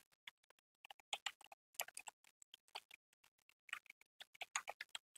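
Typing on a computer keyboard: a run of faint, quick, irregularly spaced keystrokes.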